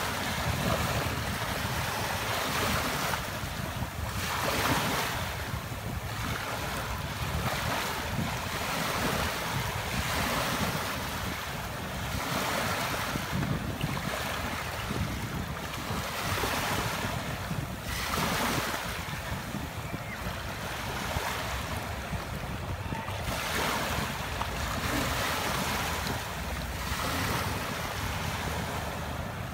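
Small waves breaking and washing up onto a sandy beach, the wash swelling and easing every few seconds.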